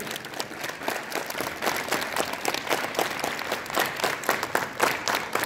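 A crowd of schoolchildren clapping their hands together as a group exercise: many quick, uneven claps that are not quite in unison, so it sounds like a ragged applause.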